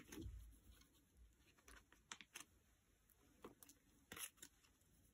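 Faint, scattered rustles and light ticks of photocards being slid into the clear plastic pocket sleeves of a binder.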